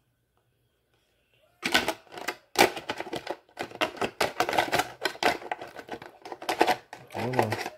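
Plastic RC buggy body shell clicking and rattling as it is handled and pressed down onto the chassis: a rapid, irregular run of sharp clicks that starts a little over a second and a half in.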